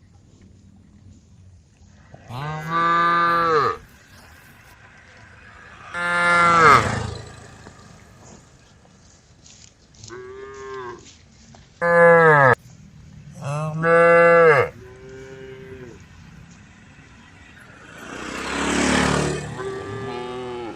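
Cows mooing repeatedly: about six long, drawn-out moos a few seconds apart, followed near the end by a louder, rougher, noisier sound.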